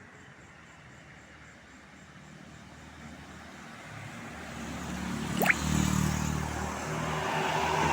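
A road vehicle approaching, its engine growing steadily louder. About five and a half seconds in there is one brief, sharp rising whistle.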